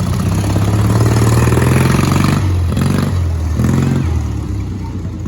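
Racing lawn mower engine revving: the pitch climbs over the first two seconds, then drops and is blipped up and down a few times before easing off.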